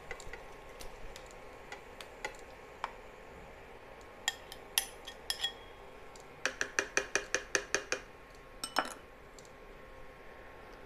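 A spoon clinking and scraping against a glass bowl as marinated chicken is scooped out into a pan. The sharp clicks are scattered, with a quick run of about a dozen even taps a little after the middle.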